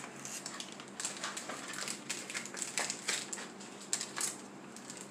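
Trading cards and their packaging being handled on a playmat: light rustling and soft clicks, on and off.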